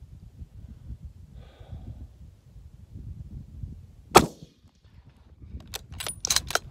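A single shot from a BSA Monarch bolt-action rifle in .30-06 about four seconds in, followed a second and a half later by a quick run of sharp metallic clicks as the bolt is worked. Wind rumbles on the microphone throughout.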